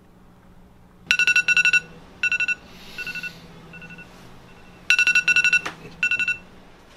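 iPhone alarm ringing: bursts of rapid, high electronic beeps that start about a second in and repeat in groups, softer in the middle and loud again near the end.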